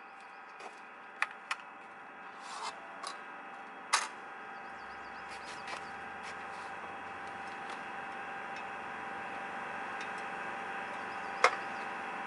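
Sharp metal clicks and knocks as the Cembre Robokatta rail saw is handled and swung round on its rail clamp, the loudest knock about four seconds in and another near the end, over a steady hum.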